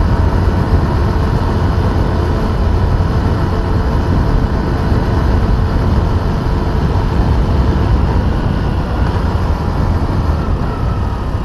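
Motorcycle running steadily at road speed, with wind noise over the microphone.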